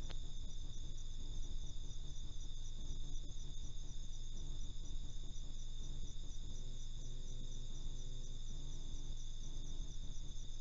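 Night chorus of crickets and other insects: a steady high chirring with a faster pulsing trill above it, over a low steady background noise.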